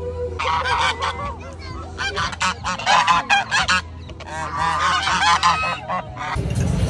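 A flock of domestic geese honking close by, many short overlapping calls with a short lull about four seconds in.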